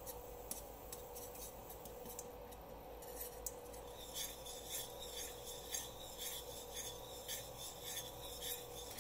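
Small wire whisk scraping and ticking against a stainless steel skillet while whisking curry paste into coconut milk. It is faint, and the strokes become quicker and more regular about four seconds in, roughly three a second. A faint steady hum runs underneath.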